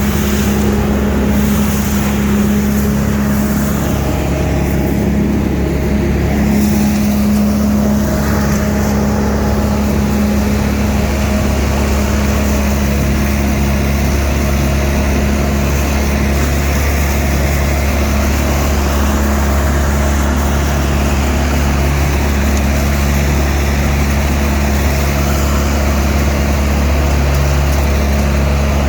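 Leaf vacuum machine running steadily, a loud, even engine drone with a low hum.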